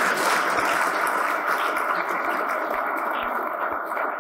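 Audience applause, a dense patter of many hands clapping, easing off a little toward the end.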